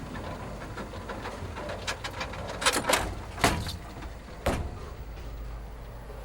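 A few separate sharp knocks or clacks, the loudest about three and a half seconds in, over a steady low hum.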